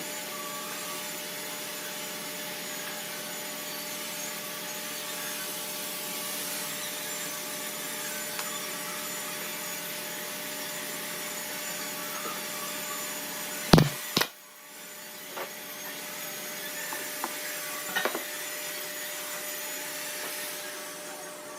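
An electric power tool runs steadily with a hum and the rasp of working wood. About fourteen seconds in come two loud, sharp knocks, and the sound drops away for a moment. Steady noise then returns with a few lighter knocks.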